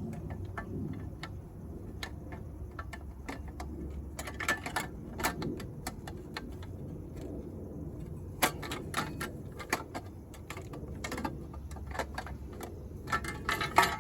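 Irregular metallic clicks and clinks of hand tools and metal engine parts being handled during reassembly of a small engine, with a few louder clattering bursts.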